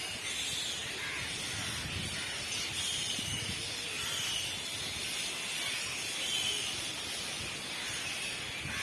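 Bats chirping: short high squeaks recurring roughly once a second over a steady hiss.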